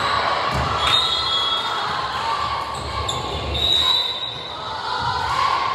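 Indoor volleyball rally: sneakers squeaking on the gym floor and the ball thumping, over a steady background din.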